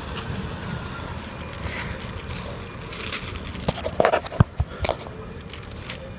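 Steady noise of a car driving, with a few knocks and clicks a little past the middle.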